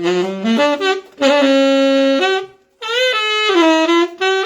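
Saxophone playing a short jazz phrase with the open, full 'real' tone rather than the breathy subtone: a few rising notes, a held note in the middle, a brief break, then a second phrase.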